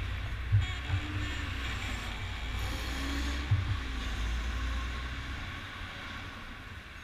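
Wind rumbling on a bike-mounted camera's microphone, with the hiss of tyres on asphalt and cars passing close alongside.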